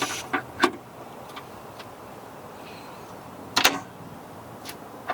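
A few sharp clicks and knocks over a quiet background: three light ones in the first second, a louder double knock about three and a half seconds in, and a faint tick near the end.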